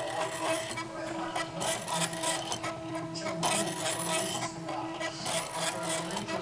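Stepper motors of a homemade Arduino-controlled pen plotter running: a steady whine under a scraping, rattling noise from the moving arm mechanism that swells and fades every second or so.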